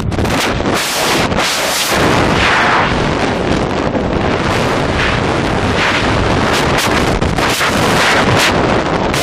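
Freefall wind rushing over a helmet camera's microphone, loud and buffeting, surging and easing every second or so as the body position shifts.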